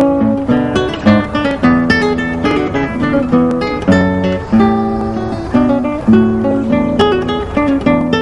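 Background music: acoustic guitar, plucked and strummed, with a quick run of notes.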